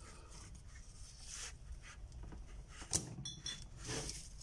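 Paper and mat board being handled and shifted on a desk: faint rustling and scraping, with a sharp click about three seconds in.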